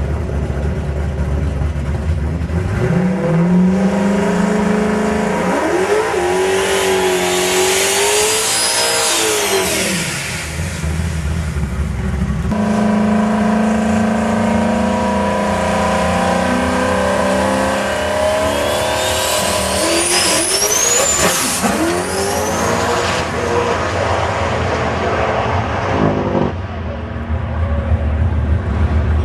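Turbocharged Ford Mustang engine revved hard twice. A high turbo whistle rises and falls with the revs, on an engine whose turbo has a bad seal.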